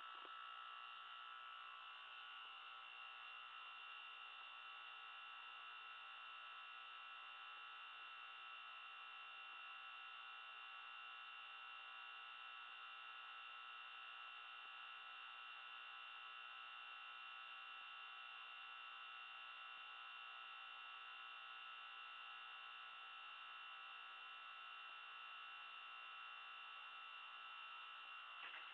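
Faint, steady electrical hum in a small bathroom, unchanging throughout.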